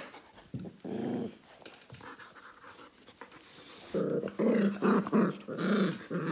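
Puppies growling in play, with panting. There is one short growl about a second in, then from about four seconds in a louder run of growls about two a second.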